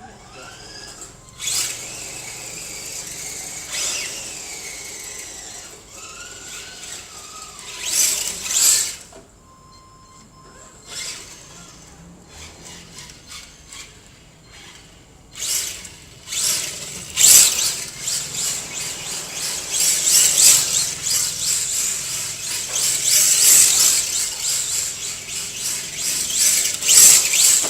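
Radio-controlled drift car's tyres squealing as it slides, in short bursts at first and then almost continuously through the second half.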